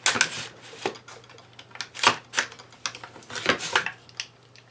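An AR-15 rifle being handled and lifted off its vise block after reassembly: about half a dozen sharp metal-and-polymer clicks and clacks, the loudest near the start and about two seconds in.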